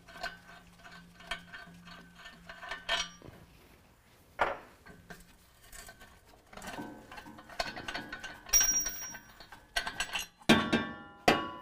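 Steel exhaust parts being handled: clinks and rattles as the two flange bolts are taken out of the exhaust head-pipe flange and the pipe is worked loose, with a few sharp, ringing metal clanks near the end.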